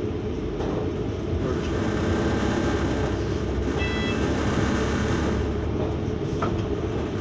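Double-decker bus on the move, heard from inside on the upper deck: a steady low drone of drivetrain and road noise, with a brief high beep about four seconds in.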